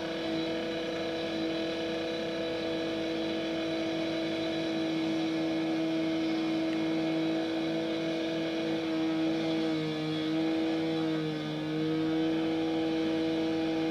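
An engine, likely on road-works machinery, running at a steady high speed with an even hum; near the end its pitch sags briefly twice, as if under a little load.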